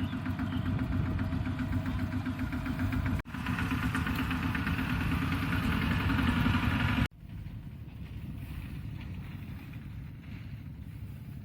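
Kubota DC-70 combine harvester running while harvesting rice: a steady engine and machinery sound with a fast, even pulse. It breaks off abruptly about three seconds in and again about seven seconds in. After the second break it is much quieter and duller.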